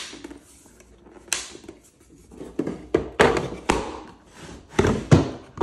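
Wooden box and wooden drawers of a watchmaker's bench being handled: a knock as the box lid shuts, another just over a second in, then a run of knocks and sliding scrapes from about two and a half to four seconds, and more knocks near the end.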